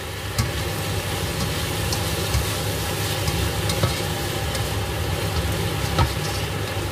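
Sour pork (naem) and vegetables sizzling as they are stir-fried in a pan, with the spatula knocking and scraping against the pan now and then, over a low steady rumble.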